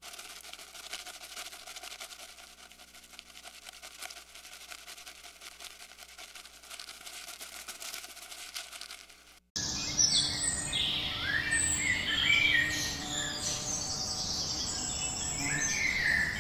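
Faint outdoor background hiss with a fine crackle. About nine and a half seconds in it cuts to a chorus of small birds chirping and singing in many short, quick whistled phrases.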